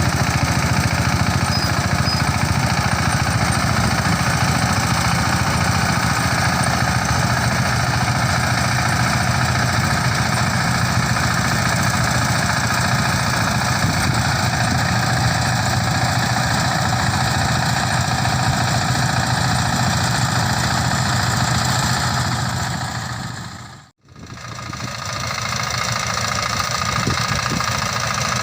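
Mini rice combine harvester running steadily with a continuous engine drone. The sound fades out for a moment near the end and comes back.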